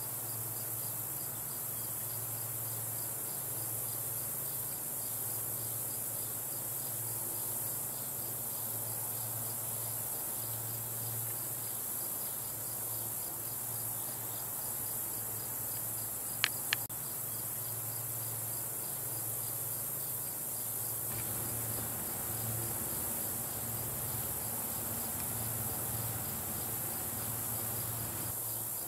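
Steady high-pitched chorus of crickets and other insects singing. Two sharp clicks, close together, come a little past halfway and are the loudest sounds.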